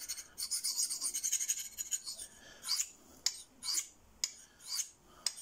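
Stainless blade of a Rough Rider skinner knife being stroked across a handheld Fallkniven CC4 ceramic pocket stone. A quick run of short rasping strokes for about two seconds, then slower single strokes about two a second.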